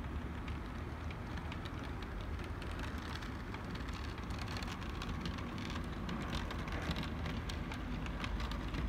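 OO gauge Bachmann Class 47 model diesel locomotive hauling coaches along model railway track: a steady low rumble and hiss of motor and wheels, with light clicks from the wheels over the rail joints that come more often in the second half.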